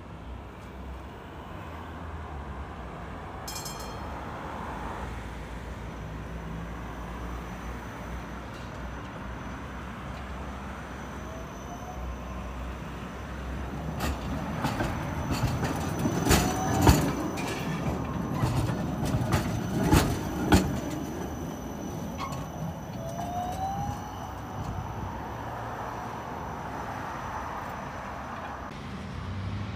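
Low-floor articulated tram rolling past on curved track, its wheels clacking sharply over the rail joints and switches several times as it passes close, loudest about seventeen and twenty seconds in, over a steady low rumble.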